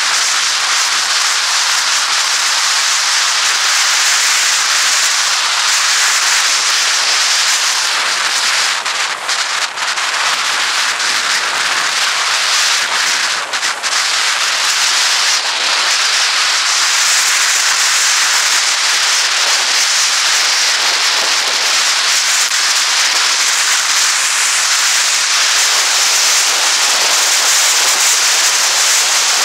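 Steady rush and crackle of wind on a motorcycle-mounted camera's microphone at road speed, with no engine note standing out; it dips briefly twice, about a third of the way through.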